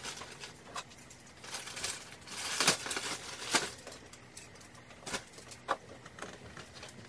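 Things being handled and moved about: scattered light clicks and knocks with rustling, loudest in a rustle about two and a half seconds in.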